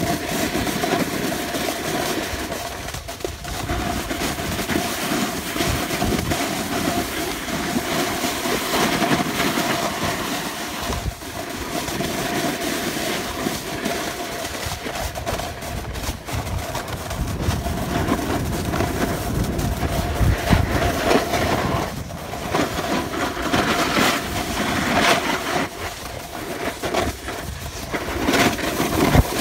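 Skis scraping and sliding over hard-packed groomed snow at speed, with wind buffeting the microphone. A faint steady hum runs underneath.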